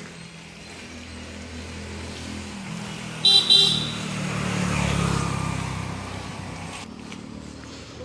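A road vehicle sounds its horn with two short toots about three seconds in, then passes by, its engine noise rising to a peak and fading away.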